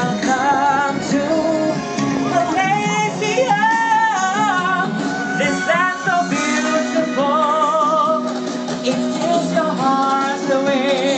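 Male vocalist singing with heavy vibrato into a microphone, amplified over instrumental accompaniment, in long held phrases.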